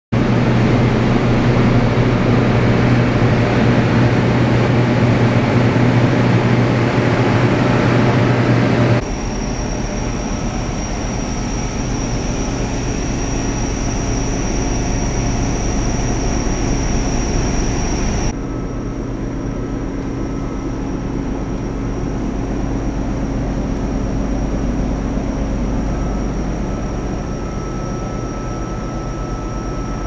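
Research ship's deck machinery and engines running with a steady low hum. The sound shifts abruptly about nine and eighteen seconds in, with a thin high whine in the middle stretch.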